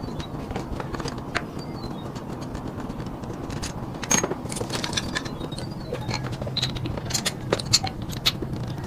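Metal tools and parts clinking, tapping and scraping in repeated sharp clicks, over a steady low hum.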